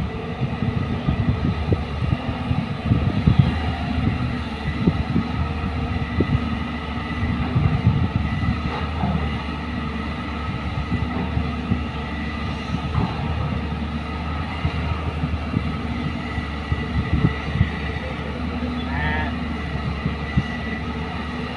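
The diesel engine of a JCB excavator runs steadily under load as it digs and loads soil into a dump truck. Frequent irregular knocks and thuds of earth and the bucket sound over it.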